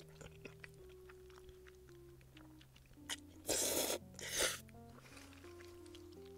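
Quiet background music with a simple stepping melody under small chewing and eating clicks. About three and a half seconds in come two loud, noisy slurps of noodles, the first about half a second long and the second shorter.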